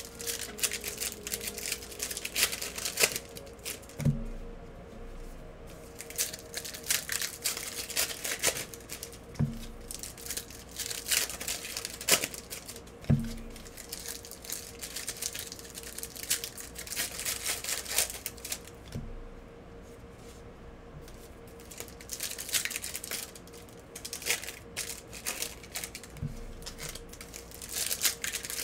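Trading-card pack wrappers crinkling and tearing as packs are ripped open, with cards being handled and shuffled in irregular rustling bursts. Soft low thumps come every few seconds, and a faint steady hum sits underneath.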